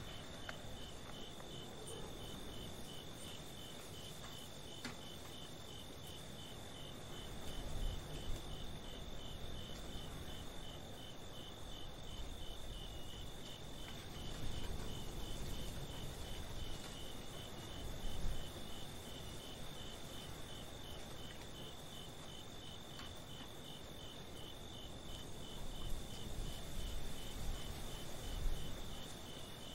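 Crickets chirping steadily in an evenly pulsing rhythm, over a low rumbling background noise that swells a few times.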